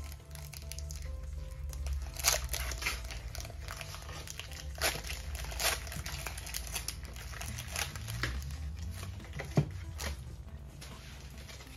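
Foil wrapper of a Pokémon trading card booster pack crinkling and tearing as it is ripped open and crumpled, in a run of sharp crackles, the sharpest about two, five, six and nine and a half seconds in, over background music.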